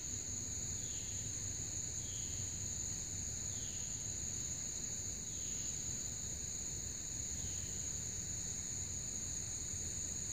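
Steady high-pitched insect chorus from the woods, with a faint falling chirp repeating every second or two over a low outdoor rumble.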